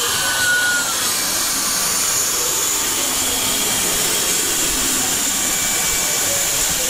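Steady hissing noise, with a short falling tone about half a second in.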